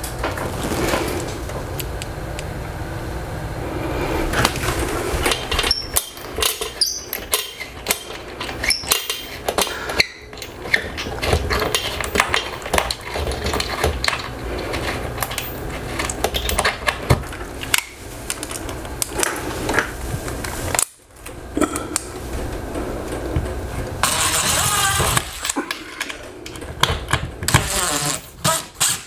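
Power drill running in short bursts into the wall at the TV mount bracket, amid many clicks and knocks of hardware being handled, with a denser spell of drilling about 24 seconds in and quick regular pulses near the end.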